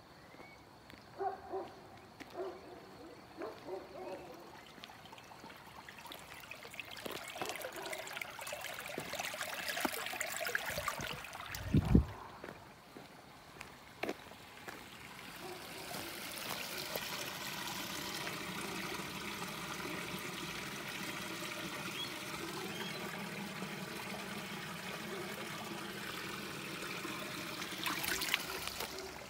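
Irrigation water running out of a concrete irrigation channel through an opening in its side, a steady trickling and splashing that holds even through the second half. A single loud thump comes near the middle.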